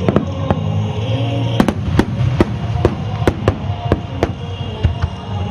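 Aerial fireworks shells bursting in an irregular string of sharp bangs, about a dozen in a few seconds, with music playing underneath.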